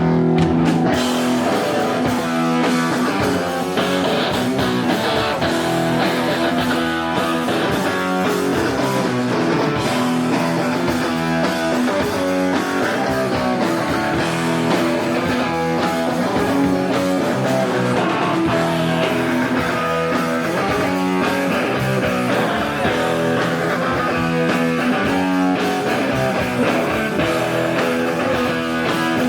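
Live rock band playing loud distorted electric guitars, bass and drum kit.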